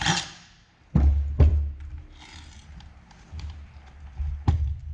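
Knocks and thumps of a cordless drill and a hoverboard's metal housing being handled on a wooden workbench: two loud thumps about a second in, light clicks and rattles after, and another sharp knock near the end.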